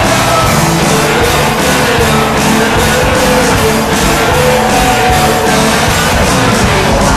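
Loud rock music with a steady drum beat and guitar, the goal song played after the goal horn.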